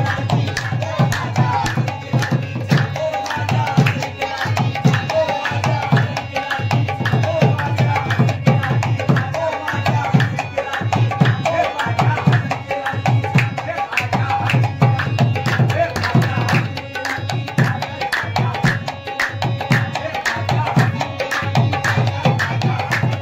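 Drum-led music: drums beaten in a dense, steady rhythm, with a wavering melody line above them.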